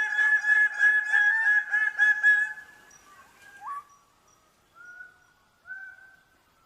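Greater bird of paradise calling: a loud, rapid run of harsh honking notes for the first two and a half seconds, then a brief rising note and a few short, fainter calls.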